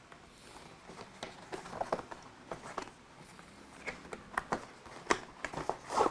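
Cardboard packaging and the microphone kit being handled during an unboxing: scattered light clicks, taps and rustles, busier and louder near the end.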